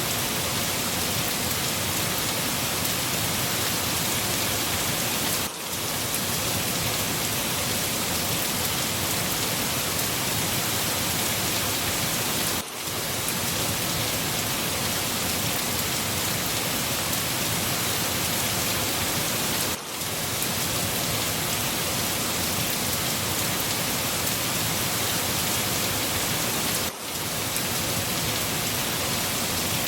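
Steady, dense rainfall with no pauses other than a brief dip in level about every seven seconds.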